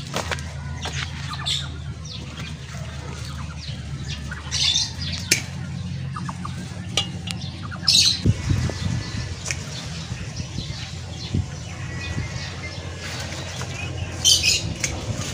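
Chickens squawking now and then, with scattered clicks and rustles from handling a dry hyacinth bean vine.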